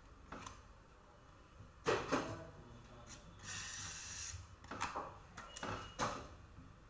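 Scattered light clicks and knocks of metal cake-decorating tools against a metal cake turntable, with a short scraping hiss about three and a half seconds in as a palette knife wipes cream off the turntable's edge.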